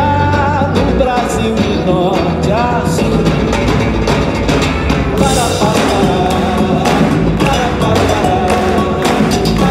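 Live band music with singing and percussion, loud and steady; from about halfway, a run of sharp strokes that fits hand clapping joins in.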